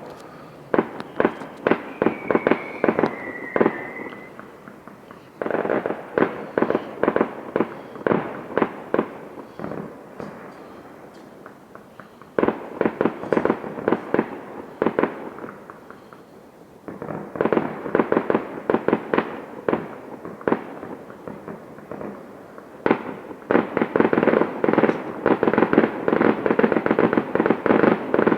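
Fireworks going off in rapid runs of sharp bangs and crackles, in about five volleys of several seconds each, with a brief whistle a few seconds in.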